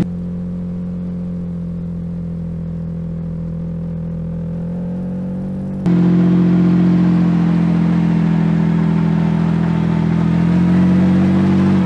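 Mitsubishi Pajero II's 3.5-litre V6 engine running at steady, nearly constant revs. The sound steps up abruptly in loudness about halfway through, and the revs rise a little near the end.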